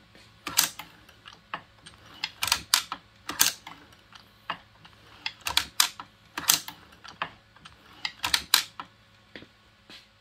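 Frankford Arsenal X-10 progressive reloading press being cycled on test after its index cam and arm were replaced: sharp mechanical clicks and clacks in clusters about once a second as it strokes and indexes.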